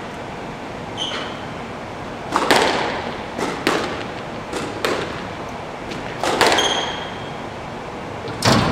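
Squash ball being hit in a glass-backed court: sharp cracks of racket on ball and ball on wall, often in quick pairs, each ringing on in the hall, about one exchange every second or so. Sneakers squeak twice on the wooden floor, and a heavier thud comes near the end.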